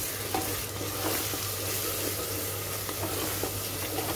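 Onion-tomato spice masala sizzling as it fries in an aluminium pressure cooker, stirred with a wooden spatula, with a few light scraping knocks of the spatula against the pot. This is the bhuna stage, the masala fried with fresh spice powders mixed in.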